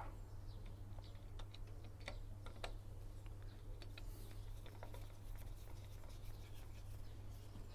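Faint, irregular small metal ticks and clicks of a screwdriver turning a drum retaining screw into a Rover Metro's rear brake drum, over a steady low hum.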